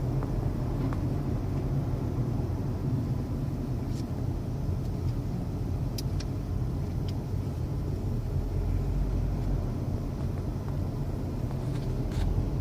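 Steady low road and engine rumble inside a moving 2016 Honda Civic, with a few faint, sharp ticks scattered through it. The ticks are the small rattle the occupants are trying to catch.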